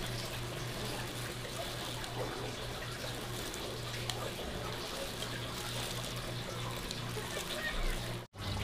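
Water trickling and splashing over a steady low hum, cut off by a brief dropout near the end.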